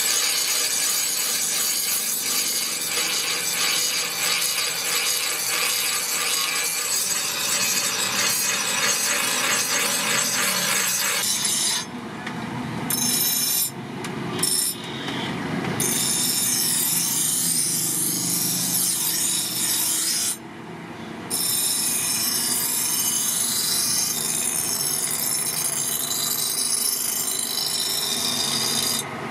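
Large motor-driven grinding wheel grinding the steel blade of a butcher knife made from truck leaf spring: a steady hissing rasp of steel on the stone over a steady motor tone. The rasp drops out briefly a few times in the second half as the blade is lifted off the wheel, while the wheel keeps running.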